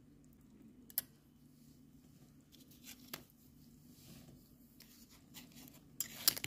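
A miniature rice cooker's lid is lifted off and small toy kitchenware is handled, giving a sharp click about a second in, another near three seconds, and a quick cluster of clicks near the end. A faint steady low hum runs underneath.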